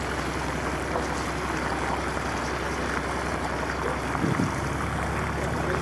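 Fishing boat's engine droning steadily under a constant rush of wind and water.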